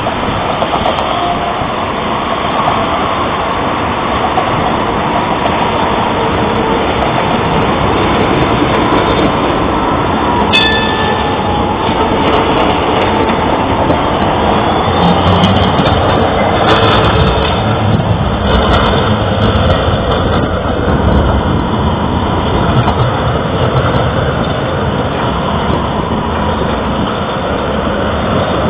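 Street tram running on its rails: a steady rumble and hiss, with a sharp click and a brief high ringing tone about ten seconds in, and a heavier low rumble about halfway through.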